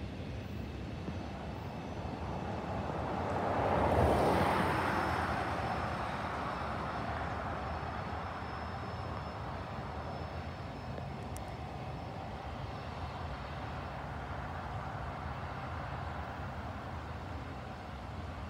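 A pickup truck passes close by; its tyre and engine noise swells to a peak about four seconds in, then fades as it drives away. Underneath is a steady low rumble from a freight train's cars rolling past in the distance.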